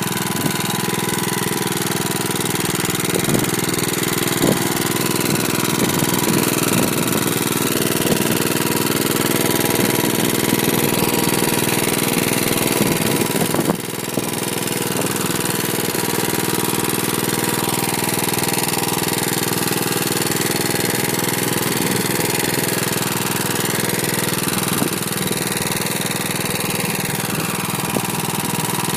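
Nibbi AE 11 two-wheel tractor's Lombardini Intermotor LA400 engine running steadily under load, pulling a single-furrow plough through turf. The sound dips briefly about halfway through.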